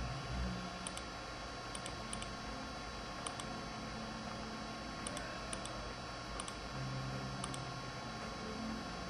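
Faint, irregular small clicks, many coming in quick pairs, over a steady electrical hum.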